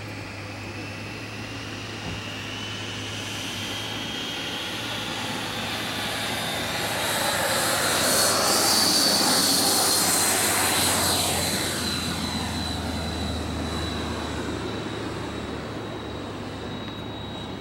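Radio-controlled model F-14 jet taking off: its engine's high whine rises in pitch as it accelerates down the runway, is loudest as it passes about halfway through, then holds steady and fades slowly as the jet climbs away.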